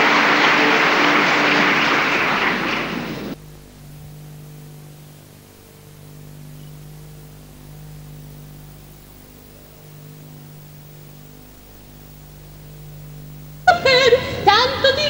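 Theatre audience applauding, cut off abruptly about three seconds in. Then a faint low hum with steady tones from the videotape, and near the end a woman starts singing with the orchestra.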